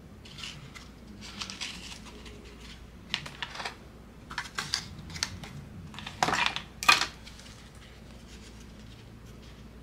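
Hands handling paper and small craft pieces on a work surface: a scattering of small clicks, taps and rustles, ending with a short rustle and a sharp tap about seven seconds in, the loudest of them.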